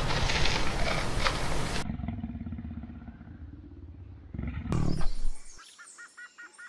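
Big cat roaring loudly and roughly, cut off abruptly about two seconds in. A second short, loud roar or growl comes past the middle. Near the end, a quick run of short, high, evenly repeated bird chirps follows.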